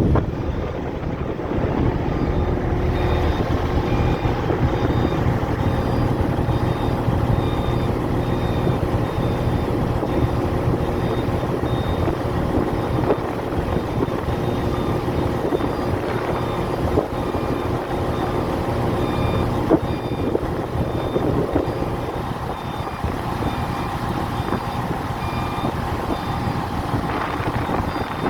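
Heavy machine engine, likely a crane's, running steadily under a low rumble, while a warning beeper sounds a regular string of short high beeps.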